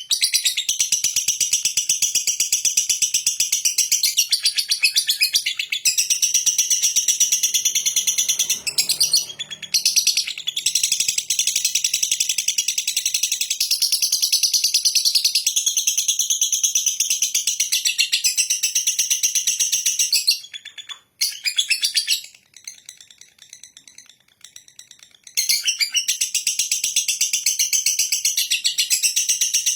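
A lovebird's ngekek: a long, rapid, high-pitched chattering trill kept up for many seconds at a time. It breaks off for about five seconds some two-thirds of the way through, then starts again.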